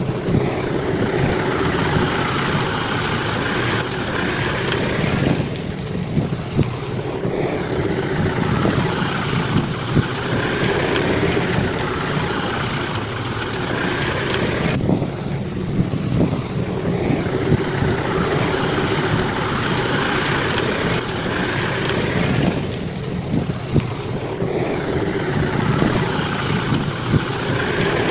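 Bulldozer's diesel engine running under load, with clattering from the machine. The engine note shifts about every eight or nine seconds as the load changes.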